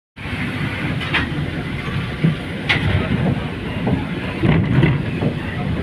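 City street traffic, with a bus driving past close by: a steady low engine and tyre rumble, and two short sharp clicks in the first three seconds.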